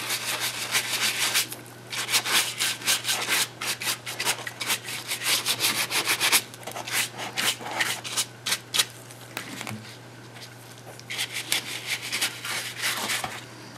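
Stiff bristle paintbrush scrubbing and dabbing paint onto a hollow paper-mache coconut shell built over a balloon: rapid, short scratchy strokes in bursts, with brief pauses, one near the start and a longer one past the middle.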